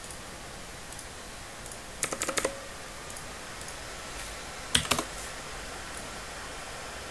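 Clicks from a computer mouse and keyboard: a quick run of about five clicks about two seconds in, then about three more near the five-second mark, over a faint steady hiss.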